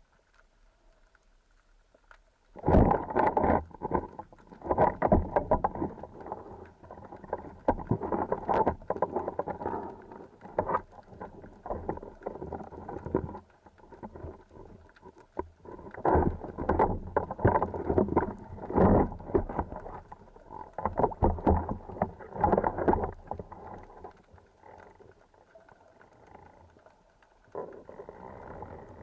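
Muffled water sloshing and splashing with scattered knocks, starting about two and a half seconds in and coming in irregular surges.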